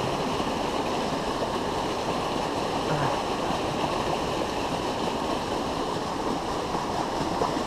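Steady rush of a river's current flowing past the bank.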